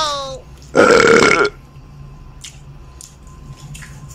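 A man's loud burp, lasting under a second, about a second in, followed by faint small clicks.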